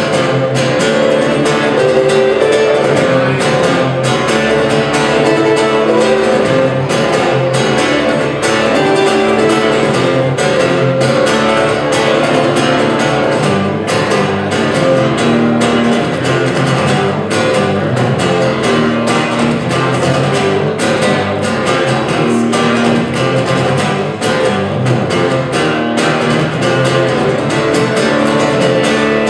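Acoustic guitar strummed and plucked in a dense, continuous song accompaniment.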